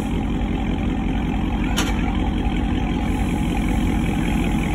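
2020 Dodge Charger Scat Pack's 6.4-litre Hemi V8 idling with its mid-mufflers deleted: a loud, steady, deep exhaust rumble. A single brief click about two seconds in.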